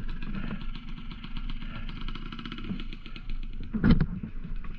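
Trail motorcycle engine running at low revs, a rapid, even pulsing, with a loud knock about four seconds in.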